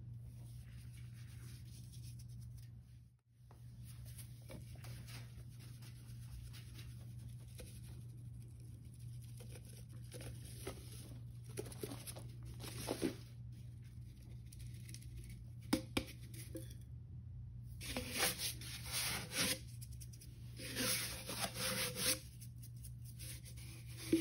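Ajax powdered cleanser sprinkled from its cardboard canister onto kitchen sponges in a metal bowl, in short hissing bursts, with hands rubbing and pressing the sponges in the dry powder.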